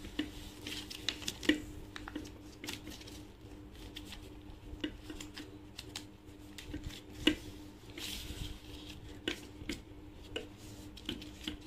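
A sheet of paper being folded and creased by hand on a plastic mat: scattered rustles and soft taps as fingers press and run along the folds, with a sharper tap a little past halfway and a longer rustle just after. A faint steady hum sits underneath.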